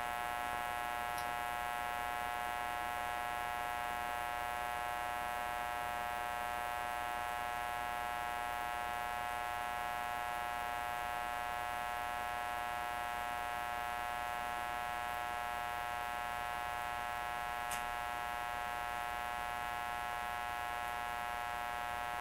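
Steady electrical buzzing hum with many even overtones, unchanging throughout; a faint click near the end.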